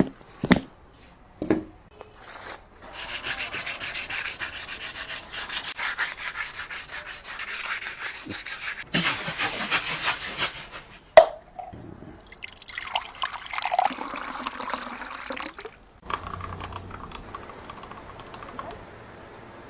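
Wood being rubbed with an abrasive in several long passes of fine, dense scraping. There are a few sharp knocks near the start and another about eleven seconds in.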